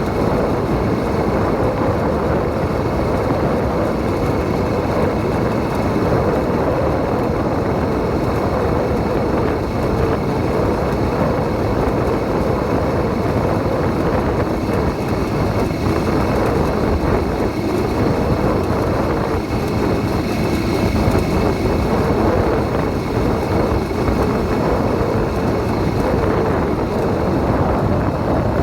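80cc motorized bicycle engine running steadily while riding along.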